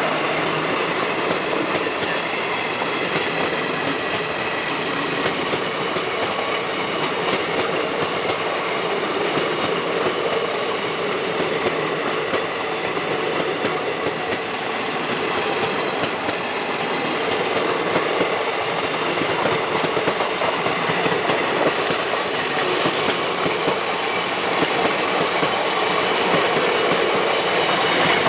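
Passing train: steady, loud wheel-and-rail running noise with clattering over the rail joints.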